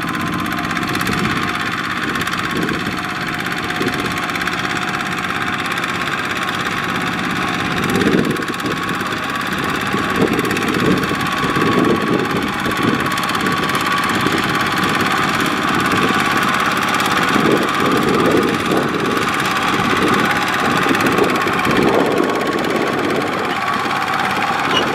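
Single-cylinder diesel engine of a two-wheel walking tractor running steadily under load as it hauls a loaded trailer through mud.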